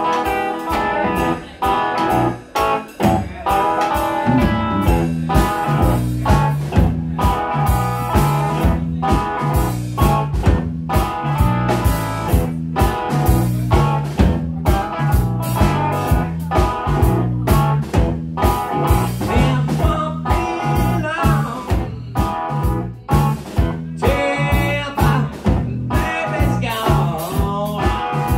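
Live blues-rock band playing: electric guitar, bass guitar and drum kit. It opens with sparse, broken guitar chords, then the full band settles into a steady beat about four seconds in.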